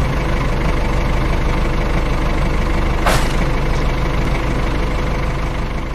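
Tractor engine running steadily with a low, even rumble. A brief swish comes about three seconds in.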